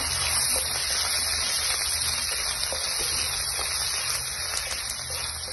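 Chopped ginger and cumin seeds sizzling steadily in hot oil in a metal kadai as a spatula stirs them, with light scrapes of the spatula against the pan.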